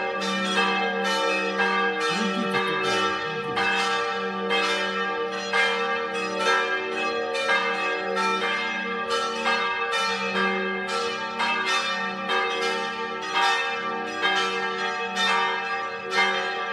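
Church bells of St. Tryphon Cathedral's twin towers ringing a continuous peal. Several bells of different pitch are struck about two times a second, each ringing on over the next.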